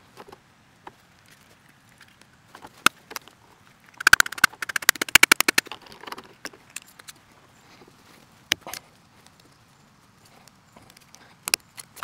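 Blue plastic water pipe being worked into a plastic compression elbow: scattered clicks and knocks of plastic on plastic, with a fast run of rapid clicks about four seconds in lasting around two seconds.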